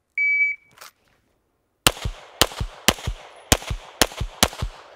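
Shot timer beeps once, then about a second and a half later a pistol fires six quick shots about half a second apart, three on each of two targets, with a slightly longer gap after the third shot as the shooter moves to the second target.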